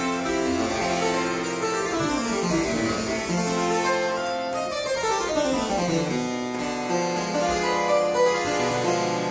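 A harpsichord playing solo music with quick, crisp plucked notes and fast scale runs sweeping through the range partway through. The instrument's nameboard reads London 1994.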